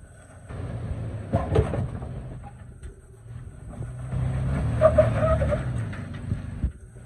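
Toyota FJ Cruiser's 4.0-litre V6 engine working in two pushes as the SUV crawls over granite boulders, swelling about half a second in and again about four seconds in, with a few sharp knocks against the rock.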